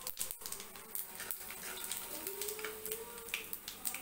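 Mustard and cumin seeds spluttering in hot oil in a kadai: many small, sharp, irregular pops and crackles.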